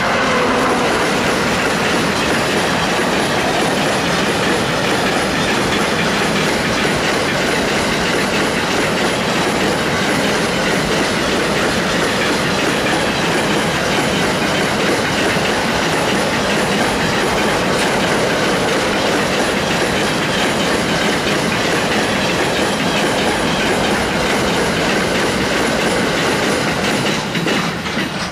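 Train passing at close range, its wheels rolling steadily on the rails; the sound cuts off suddenly near the end.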